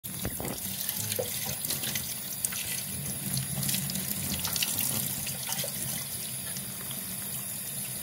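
Kitchen tap running steadily onto a bathing cockatiel and splashing into a stainless steel sink, with irregular sharp spatters throughout.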